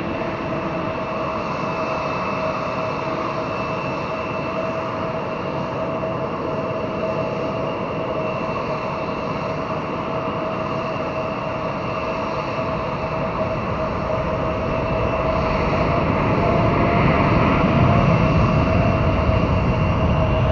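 Boeing 787-8 Dreamliner's GEnx turbofan engines running at low thrust as the jet taxis: a steady jet hiss with a constant whine. It grows louder, with a deeper rumble, over the last few seconds.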